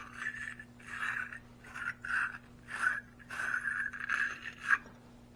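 Battery terminal or post being scrubbed clean with short back-and-forth scraping strokes, about two a second, stopping shortly before the end.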